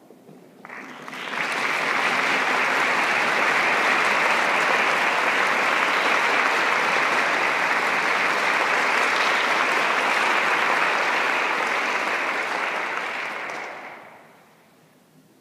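Audience applauding, swelling up within the first second or two, holding steady, then dying away near the end.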